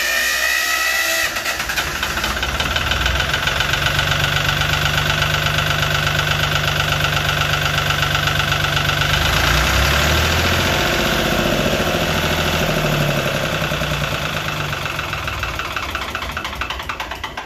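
Lister ST3 three-cylinder air-cooled diesel spun by its electric starter with the decompression lever on. With the exhaust valves held open there is no compression, so it cranks fast. About a second in the lever is thrown back, closing the valves, and the engine speed changes as compression builds. The engine then runs steadily until the sound stops near the end.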